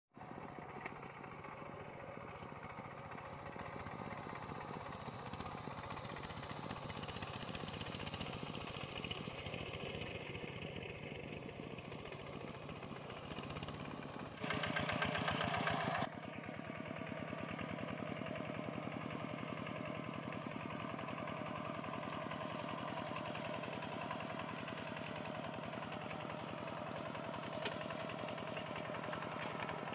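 A small engine running steadily with a fast, even pulse, louder for about a second and a half midway through.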